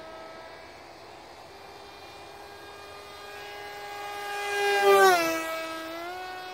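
Brushless electric motor (Turnigy Aerodrive D2826-10, 1400 kV) spinning a 7.5-inch prop on an RC foam-board profile plane, giving a loud, steady buzz. The buzz swells as the plane passes close about five seconds in, and its pitch drops sharply as the plane goes by.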